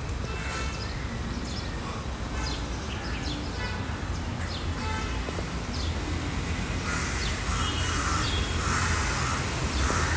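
Outdoor ambience of birds chirping and crows cawing, the cawing louder in the last few seconds, over a steady low rumble.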